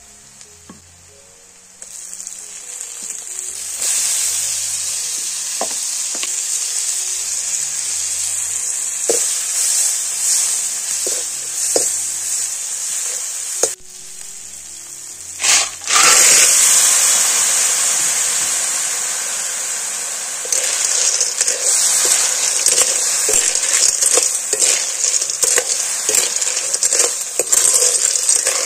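Food sizzling in hot oil in an iron kadhai: sliced onions at first, then snails in their shells, stirred with a metal ladle. About halfway through there is a sudden loud hiss as fresh food meets the oil. Toward the end the sizzle grows thicker, with many small clicks and scrapes from the stirring.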